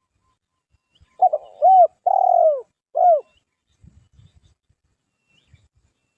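A dove cooing one phrase of four low coos, the third drawn out longest, starting about a second in. A few faint low rustles follow.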